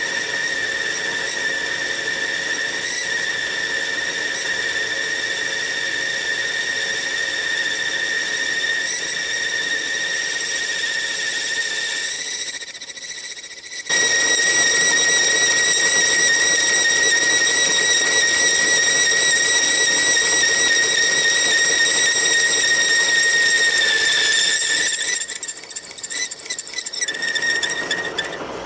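Metalworking machine tool running with a steady high-pitched whine. It drops out briefly about twelve seconds in and again near the end, and is louder in between.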